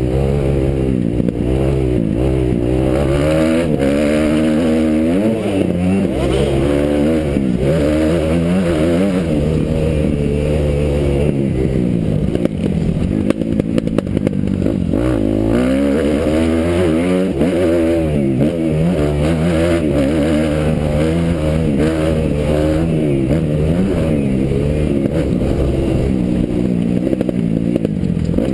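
Kawasaki motocross bike's engine heard from a helmet-mounted camera, revving up and down again and again as the throttle is worked around the track.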